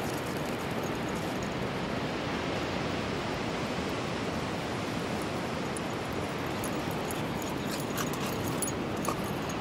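Steady rush of wind and surf on an open beach, an even noise that holds level throughout, with a few faint clicks near the end.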